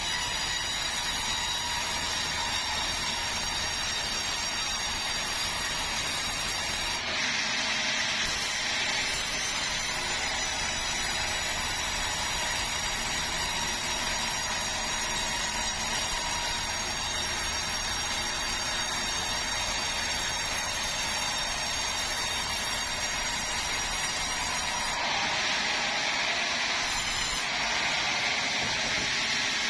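Sawmill saw running through bengkirai hardwood: a steady mechanical noise with a high whine over it. The sound shifts abruptly about seven seconds in and again near twenty-five seconds.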